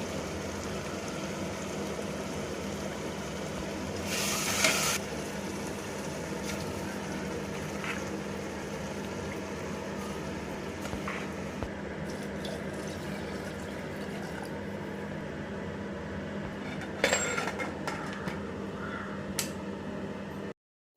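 Liquid simmering in a cooking pot over a steady low hum, with a short louder rush about four seconds in and a few light knocks near the end.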